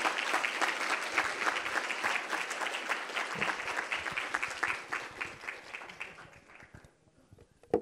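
Audience applauding, the clapping thinning out and dying away about six to seven seconds in. A single sharp knock comes right at the end.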